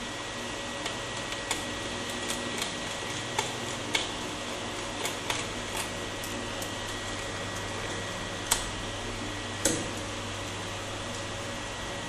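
Small screws being refitted into a laptop's hard-drive bay with a hand screwdriver: scattered light clicks and ticks of metal on the plastic chassis, with two louder clicks about eight and a half and nearly ten seconds in, over a steady background hum.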